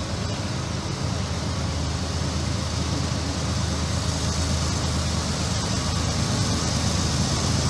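Diesel freight locomotive engine running under load with a steady low drone, growing slowly louder as the train approaches.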